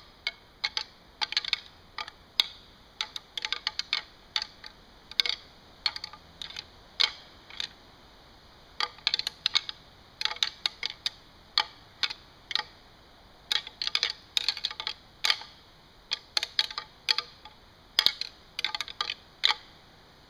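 A pair of white-tailed deer antlers rattled together very softly, tines tapping and lightly rubbing against each other in irregular clusters of sharp clicks. This is gentle early-season rattling, meant to sound like young bucks sparring lightly.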